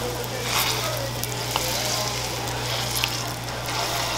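Croissant dough sizzling on a hot waffle iron plate as it is pressed flat with metal tongs, a steady hiss with a couple of short clicks.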